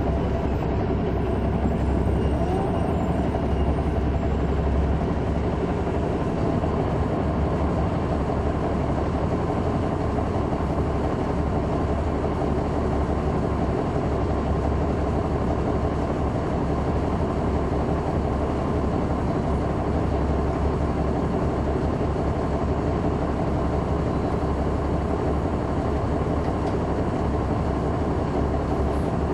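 Caterpillar C9 ACERT inline-six diesel engine of a Neoplan AN459 articulated transit bus, heard from inside the bus, running steadily with a constant engine hum and road rumble.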